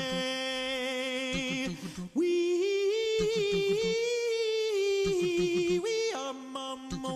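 Background music: a cappella singing, with voices holding long notes with vibrato that shift pitch a couple of times, over a quick rhythmic low pulse.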